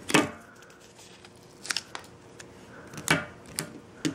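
Handling noises: a handful of sharp taps and clicks as a smartphone and a small dust-removal sticker are handled on a glass tabletop, the loudest about three seconds in.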